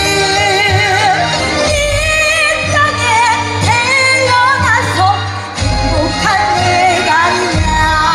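A Korean traditional (gugak) female singer sings through a microphone with a wide, wavering vibrato over amplified backing music with a steady bass.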